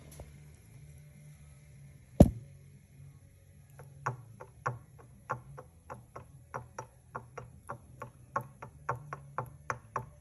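Honda Foreman 500 ATV engine running with a low hum, one loud knock about two seconds in, then a repeating sharp knocking at about three to four a second. This knocking is the mystery engine noise being tracked down.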